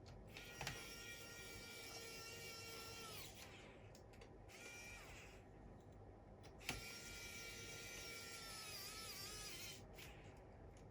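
A small electric motor whining at a high, steady pitch, run three times: about three seconds, then a brief burst, then about three seconds more. The first and last runs start with a click, and the pitch wavers and dips just before the last run stops.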